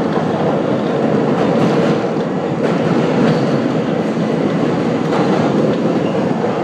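R42 subway train running through a tunnel, heard from inside the front car: a steady, loud noise of wheels on rail with occasional clicks from the track.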